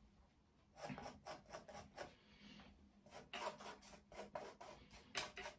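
Faint scraping and dabbing of a painting knife laying thick acrylic paint onto a textured canvas, in short strokes with a pause about halfway.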